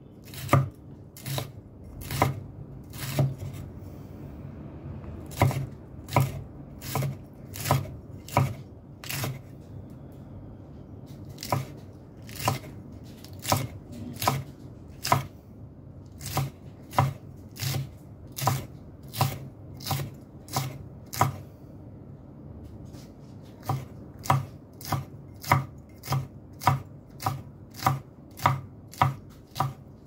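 Kitchen knife chopping green chilies on a cutting board: steady, sharp chops about two a second, stopping briefly twice.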